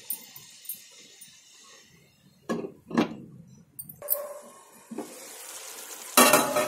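Cooking sounds from a pan of egg curry on a gas stove: two sharp pan knocks a few seconds in, then a low steady simmer, and a loud burst of sizzling and stirring near the end.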